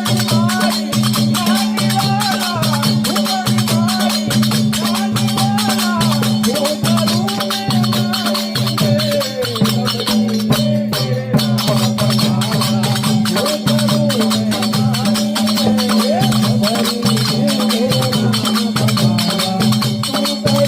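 Devotional dhun music. A voice sings a wavering melody over a steady held drone note, with fast continuous rattling percussion and a regular low pulsing beat. The rattling drops out briefly about halfway through.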